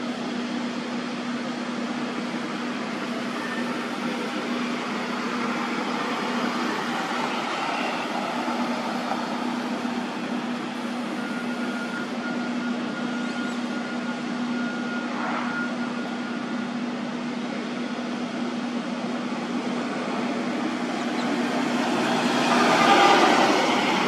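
Steady machinery engine hum: a constant low drone over a noisy rumble, with a faint high whine for a few seconds in the middle. The noise grows louder shortly before the end.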